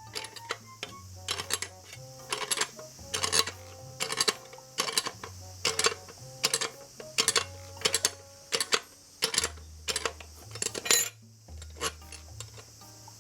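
Background music with a bass line stepping between held low notes, under sharp clinking strikes about twice a second.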